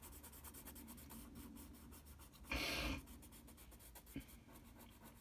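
Graphite pencil scratching on drawing paper in quick, faint shading strokes as the hair is darkened, with one louder rasping stroke about halfway through.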